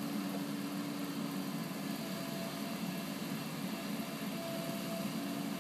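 Bobcat mini excavator's diesel engine running steadily.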